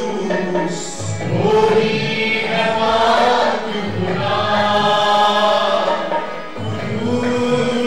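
A man leads an Urdu Christian worship song through a microphone, holding long sung notes. Other voices join him, over low sustained musical accompaniment.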